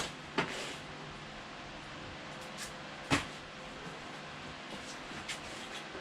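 A few sharp clicks and knocks of small hard objects being handled, loudest at the start, about half a second in and about three seconds in, over a low steady background.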